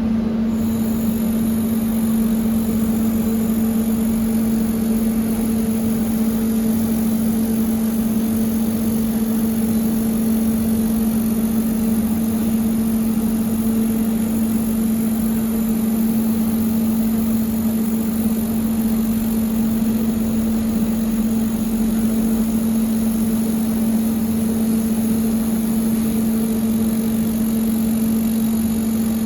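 Robotic laser welding station running: a steady electrical hum with a continuous high hiss that comes in about half a second in.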